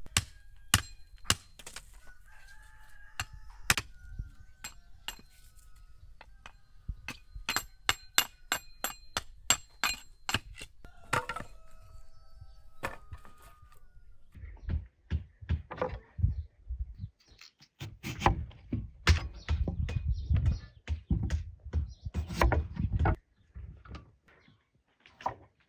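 A rooster crowing, with held calls near the start and again about halfway through. Sharp clicks and knocks run throughout, quick and regular for a few seconds, and heavier thumps and rumbling fill the second half.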